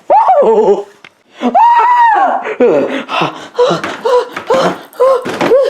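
A voiced character laughing with exaggerated, menacing clown laughter. A short cry and a long drawn-out high note lead into repeated "ha" pulses about twice a second.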